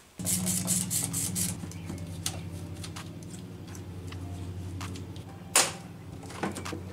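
A cloth rubbing over engine parts in quick strokes, then a hand trigger spray bottle squirting a water and rubbing-alcohol mix, once sharply about five and a half seconds in, with a few light clicks. A steady low hum runs underneath.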